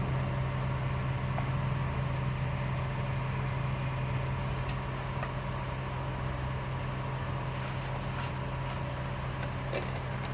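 Steady low mechanical hum, with a few light clicks and rustles near the end.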